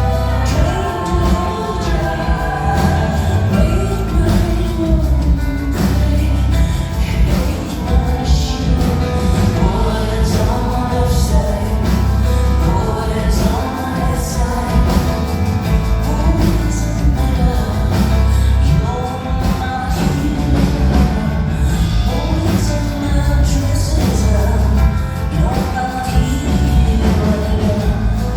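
Live concert music: a woman singing over keyboards and a heavy, steady bass, recorded in a concert hall.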